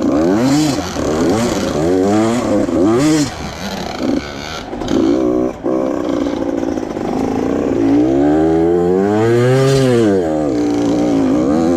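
85cc two-stroke dirt bike engine revving up and down as it is ridden, its pitch climbing and dropping again and again, with one long rev rising and falling near the end.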